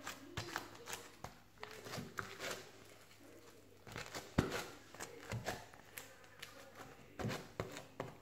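Homemade slime being squeezed and worked by hand, giving a run of irregular short clicks and pops, the strongest about four seconds in.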